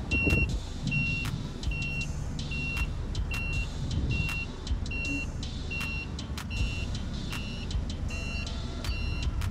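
Propane-fuelled Cat forklift running, with its warning alarm beeping steadily, a single high tone repeated a little more than once a second.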